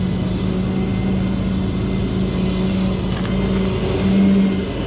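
Rollback tow truck's engine and bed hydraulics running steadily as the flatbed is rolled up, a constant hum with a brief louder swell about four seconds in.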